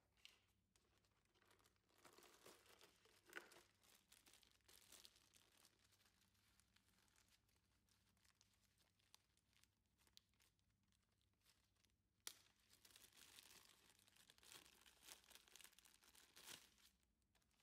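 Faint rustling and crinkling of packaging being handled and pulled open, in two spells, with a sharp click about twelve seconds in.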